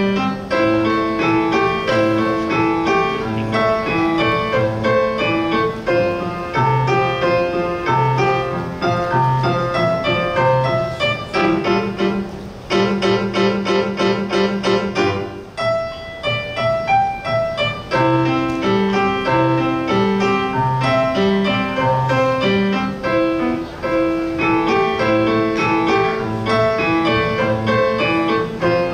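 Solo piano piece played in recital, a melody over a steady bass line. About halfway through there is a passage of fast repeated notes lasting a few seconds, then the tune resumes.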